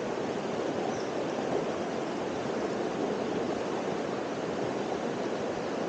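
Steady rushing of a waterfall and fast stream water, an even roar with no breaks.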